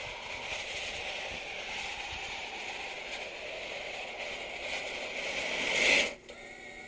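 Rushing, wind-like whoosh from the opening of an animated film teaser, played over a hall's loudspeakers. It swells to a peak and cuts off suddenly about six seconds in.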